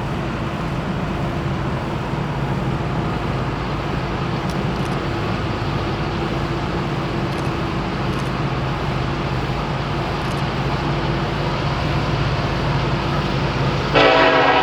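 Steady low rumble with a faint engine-like hum. About fourteen seconds in, a Nathan K5LLA five-chime locomotive air horn suddenly starts blowing a loud, many-toned chord.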